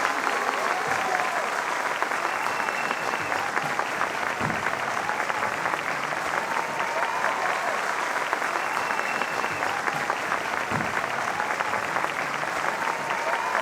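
Many people clapping together in a steady, sustained round of applause.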